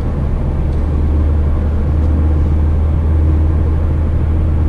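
Inside the cabin of a moving 2017 Mazda MX-5: its 2.0-litre four-cylinder engine runs at a steady cruise under a strong, even low drone of engine and road noise.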